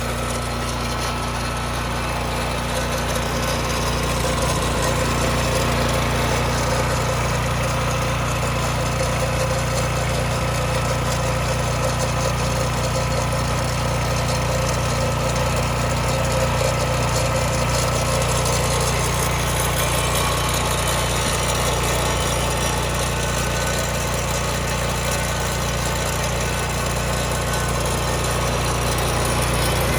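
Husqvarna FS309 concrete saw's Subaru 9 hp petrol engine running steadily at a constant speed.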